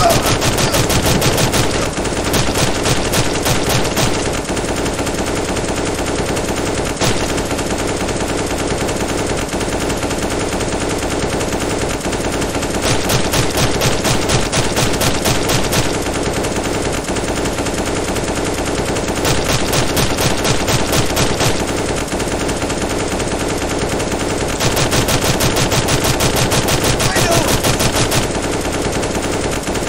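Rapid machine-gun fire in several bursts of a few seconds each, the longest near the end, over a steady hum.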